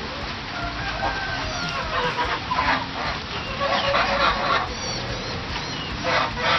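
Backyard fowl calling in a few short, loud bursts, about two seconds in, around four seconds in and again near the end.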